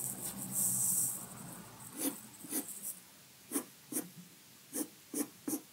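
Graphite pencil scratching on paper. One longer stroke comes first, then from about two seconds in a run of about eight short, separate strokes, roughly half a second apart, as when sketching short lines.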